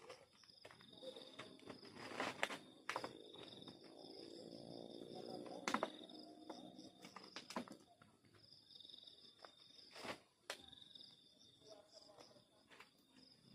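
Crickets chirping in a steady, pulsing chorus, with scattered sharp clicks and knocks of handling over it, the sharpest about two and a half and six seconds in.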